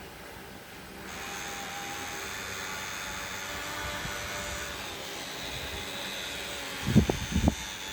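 A small electric motor starts about a second in and runs with a steady whir and a high whine. Near the end, two or three dull thumps land close together.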